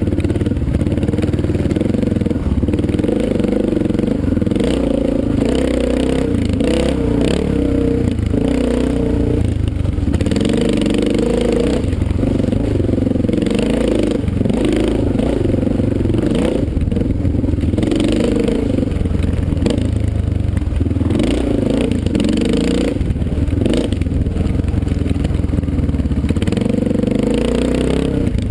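Dirt bike engine heard from on board while riding a rough trail, its pitch rising and falling over and over with the throttle. Clatter and knocks from the bike going over rocks and bumps run through it.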